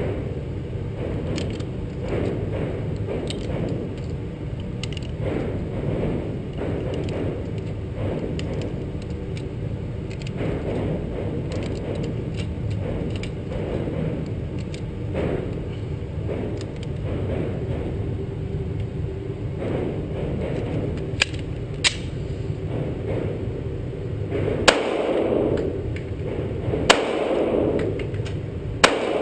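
A steady low rumble with faint clicks, then two sharp clicks followed by three gunshots about two seconds apart near the end, each echoing in the indoor range.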